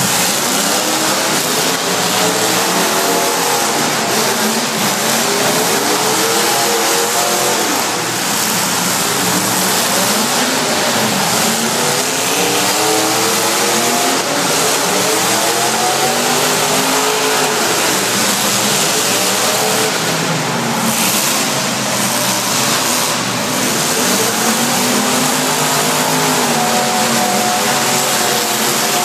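Several demolition derby cars' engines revving at once, their pitches rising and falling over one another without a break.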